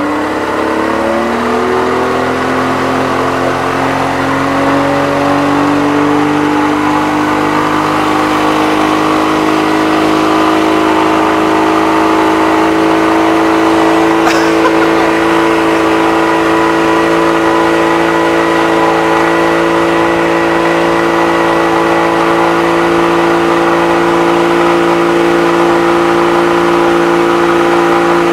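Motorboat engine speeding up over the first few seconds, then running at steady high revs while towing a wakeboarder.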